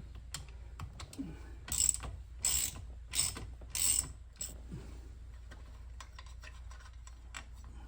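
Socket wrench on a car's steering wheel bolt: metal clicks, then four short ratcheting rasps about 0.7 s apart as the bolt is worked loose.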